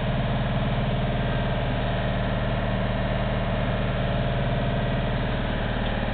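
Hougen HMD925 magnetic drill press motor running at a steady speed, an even mechanical hum and whine with no change in pitch or load.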